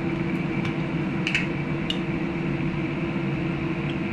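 Steady mechanical hum from a kitchen appliance, with a few light clicks and clinks of kitchenware being handled to make a salad dressing; the loudest clink comes about a second and a half in.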